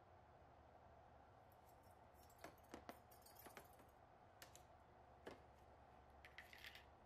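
Near silence over a low steady hum, broken by faint light clicks and taps: a few scattered ones in the middle and a quick little cluster near the end.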